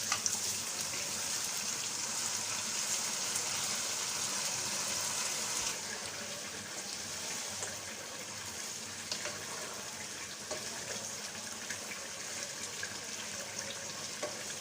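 Sizzling in a pot of frying spice paste, tomato and half-cooked dal as washed rice is added: a steady hiss that eases a little about six seconds in.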